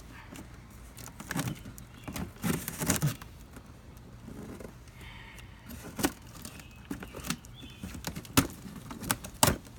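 A cardboard box being cut open and handled: irregular scrapes, rustles and clicks, with a couple of sharper knocks near the end.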